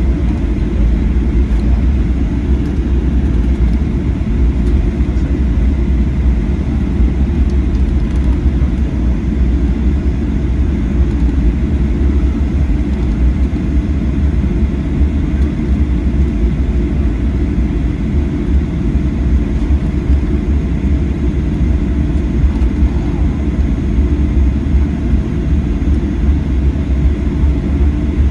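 Steady low rumble inside the cabin of a Boeing 737-800 on the ground after landing, even throughout with no distinct events.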